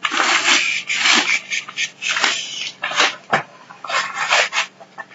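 Plastic padded mailer crinkling and rustling in repeated bursts as hands handle and open it.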